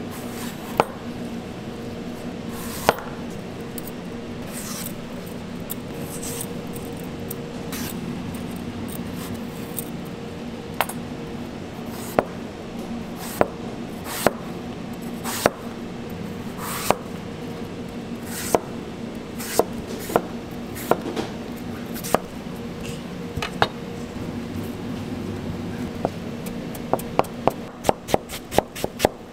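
Chef's knife cutting an apple on a cutting board: scattered single knocks of the blade on the board, then near the end a run of quick, even chops, about four a second, as the peeled apple is cut into thin strips. A steady low hum runs underneath.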